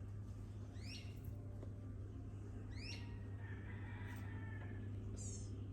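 Two short, high chirps rising in pitch, about two seconds apart, over a steady low hum. No gunshots.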